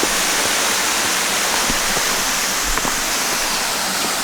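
Waterfall rushing: a loud, steady roar of falling water, with a few faint clicks over it.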